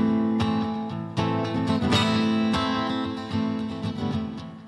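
Acoustic guitar strummed, chords ringing between strokes in an instrumental break with no singing.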